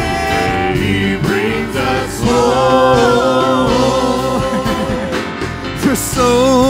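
Live church worship band and singers playing a gospel song, with long held sung and instrumental notes between lyric lines.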